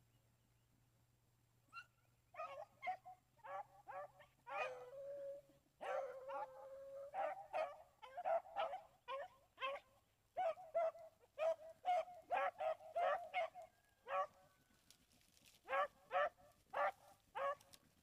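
Beagle pack baying on a rabbit's scent trail: many short chop barks and a couple of long drawn-out bawls. The calls start about two seconds in, stop briefly, then four more come near the end.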